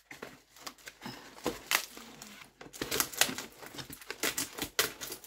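Foil packaging wrap crinkling as it is cut open with scissors and unrolled, a string of irregular crackles and clicks.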